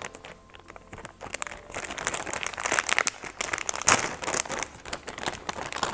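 Plastic mailer bag crinkling and rustling as it is pulled open by hand, with a sharper crackle about four seconds in. It starts quieter and grows busier after about a second.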